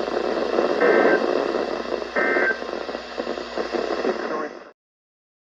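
Emergency Alert System end-of-message data bursts on a NOAA Weather Radio broadcast: two short, harsh digital chirps about a second and a half apart over radio static, signalling the end of the alert. The static runs on and then cuts off suddenly near the end.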